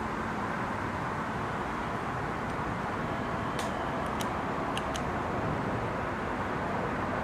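Steady background noise with a few faint light clicks about halfway through.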